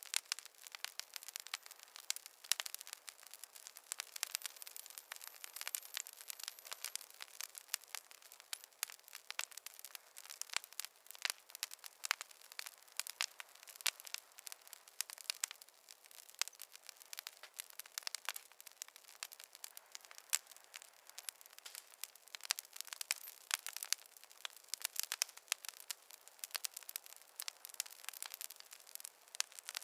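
Wood fire in a fireplace crackling, a steady stream of irregular sharp pops and snaps over a soft hiss.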